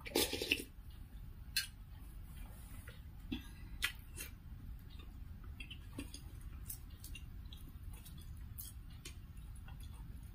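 Close-miked eating sounds: a short slurp of chicken soup from a spoon at the very start, then scattered small wet clicks and smacks of chewing.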